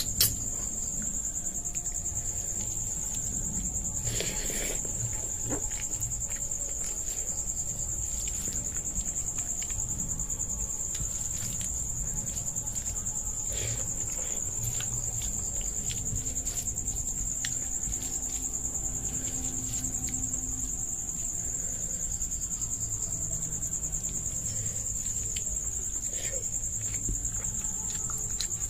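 A steady, high-pitched chirring of insects in the background, under soft, irregular clicks and smacks of eating: a hand mixing rice on a plate and chewing.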